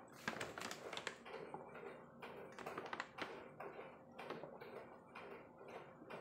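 A person drinking avocado juice from a glass mug in long draughts: a run of close-miked swallowing gulps and small wet mouth clicks, quick near the start and then spaced out.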